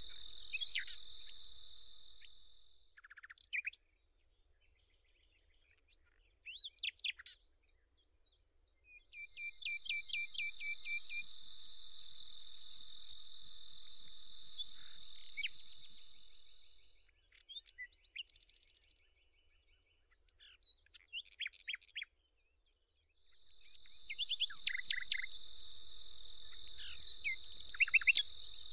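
Open-country summer ambience: an insect's steady, pulsing high trill with short bird chirps over it. The trill stops twice, leaving stretches of near silence broken only by a few chirps.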